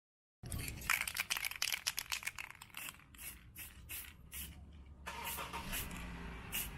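Aerosol spray-paint can shaken, a fast run of sharp rattling clicks from the mixing ball, then from about five seconds in a steadier hiss of spraying.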